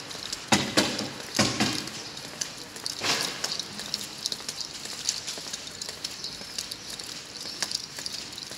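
Footsteps on a tiled sidewalk with a steady crackle of small ticks, handling noise on a handheld camera microphone while walking. A few louder thuds come in the first three seconds.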